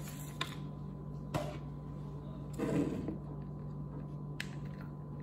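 Small handling sounds as construction-paper strips are handled and a hot glue gun is picked up: a few light clicks and one brief rustle about two and a half seconds in, over a steady low hum.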